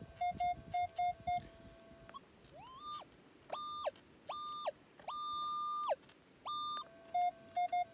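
Minelab Equinox metal detector audio: a steady low threshold tone broken by quick low blips, then about five higher-pitched tones that glide up and drop off, each about half a second and one about a second, as the coil passes over a target. The high tones are a target signal, with low blips returning near the end.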